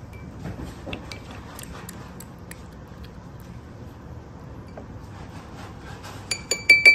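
Faint small clicks and smacks as a young kitten suckles milk from a feeding syringe, then near the end a quick run of about five loud, ringing clinks.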